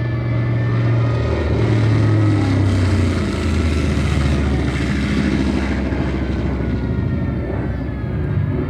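A propeller aircraft's engine drone, swelling a second or two in and easing off again, with an air-raid siren wailing faintly behind it.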